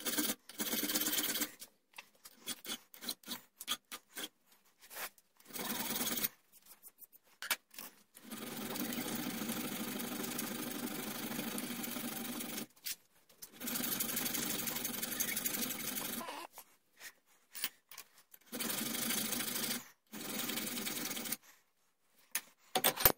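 Hand files rasping on a steel rear-sight blank clamped in a bench vise, in quick back-and-forth strokes. The filing comes in about six bursts of one to four seconds, with short pauses between them, the longest near the middle.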